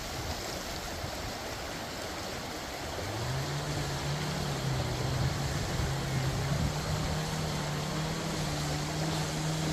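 Shallow creek rushing and splashing over rocks, a steady loud rush of water. About three seconds in, a steady low hum like a distant motor joins it and holds.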